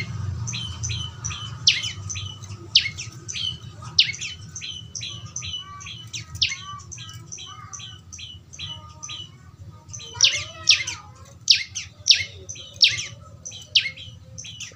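Young bar-winged prinia calling: rapid, repeated sharp chirps that each drop quickly in pitch, several a second, with a louder run of calls about two-thirds of the way through. A steady low hum runs underneath.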